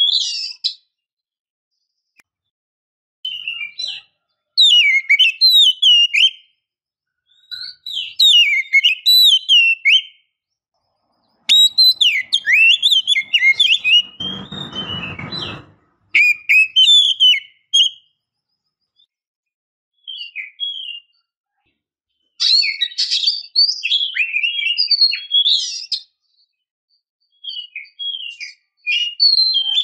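Oriental magpie-robin singing: bursts of quick, sliding whistled notes in phrases of one to two seconds, broken by short silences. About halfway through, a brief rustling noise sounds under the song.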